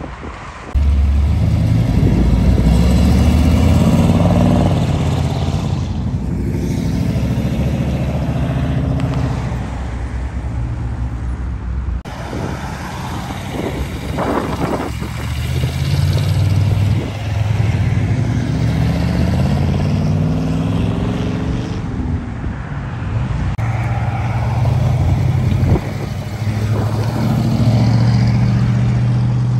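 Car engines accelerating past one after another, each rising in pitch as it revs up, then dropping back and climbing again through gear changes; among them a boxy Chevrolet Malibu station wagon and a first-generation Ford Mustang coupe.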